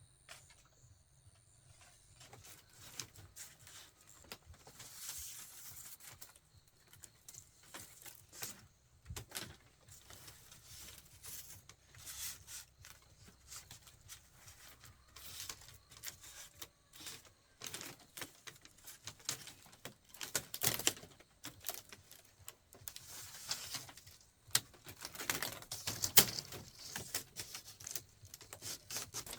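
Irregular taps, knocks and scraping, typical of bamboo being worked by hand. They grow busier and louder towards the end, with one sharp strike the loudest.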